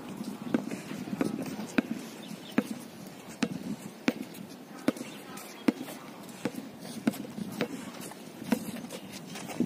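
Basketball dribbled on an outdoor concrete court: sharp bounces at a steady pace of a little more than one a second, with players' voices faint in the background.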